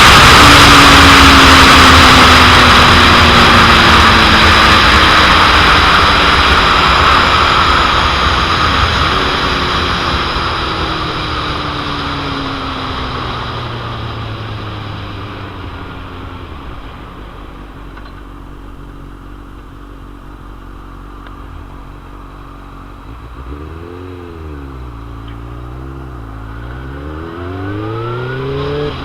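2001 Suzuki GSX-R750's inline-four engine slowing down under heavy wind noise on the microphone. The wind fades as the revs drop, with a gear change about nine seconds in, and the engine settles to a low steady run. Near the end the revs rise and fall twice, then climb again.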